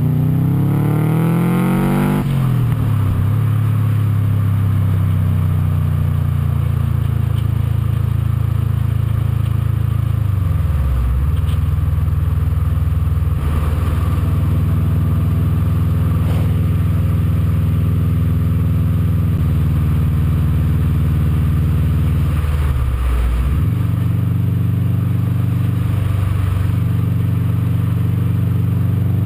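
Turbocharged EJ20 flat-four of a Subaru Liberty RS running through a 3-inch Hi-Tech exhaust, heard at the tailpipe while driving. The revs climb for the first couple of seconds, then drop, and the engine holds a steady drone, with the pitch dipping briefly and recovering twice and rising again near the end.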